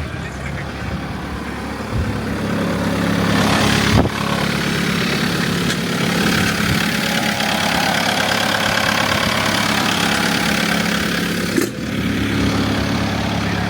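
Bobcat S850 skid steer's Doosan D34 diesel engine running steadily, picking up about two seconds in. A sharp click comes about four seconds in and another near the end.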